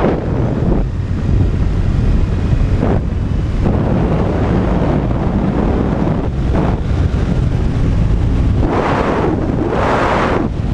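Wind rushing over a helmet-mounted camera's microphone on a motorcycle at road speed: a steady low rumble with gusts that swell several times, loudest near the end.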